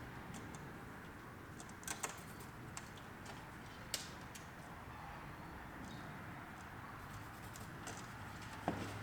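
A few light, scattered clicks and taps from hand tools being handled while a hole is marked out on a wall, over a faint low hum.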